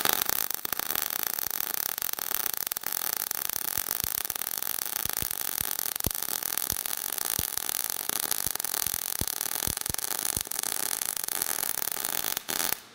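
MIG welding arc in globular transfer (0.030 wire, 75/25 argon-CO2 gas, 20.5 volts, 275 inches per minute wire feed) burning steadily: a dense crackle broken by irregular sharp pops, cutting off near the end. At this wire feed speed the arc is still popping and unsettled, which the welder doesn't like and means to tighten up with more wire speed.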